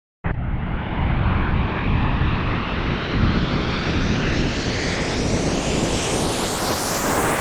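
A horror-style transition sound effect from a sample library: a dense, rumbling noise riser. It starts suddenly just after the start and grows steadily brighter throughout.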